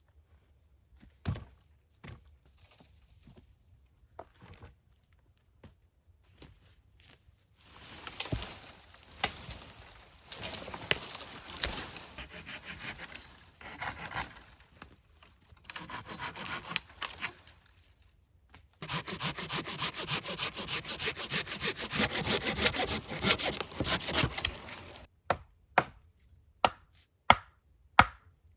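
A hand saw cutting through wood in several bouts of back-and-forth strokes, the longest lasting about six seconds in the second half. Scattered knocks come before the sawing, and a run of sharp taps at the very end.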